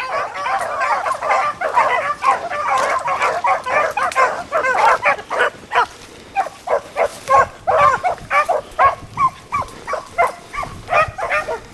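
A pack of beagles baying on a rabbit's trail, many voices overlapping at first, then thinning to scattered single bays. The hunters judge the running as not sounding right: some of the dogs have missed where the rabbit turned.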